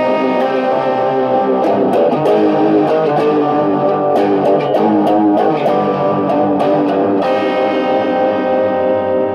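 Electric guitar played through a Whirly Bird envelope phaser pedal, likely still in its fade-out mode, where the phaser sound comes first and cleans up as a note sustains. The guitar plays busy notes and chords, then strikes a chord about seven seconds in and lets it ring.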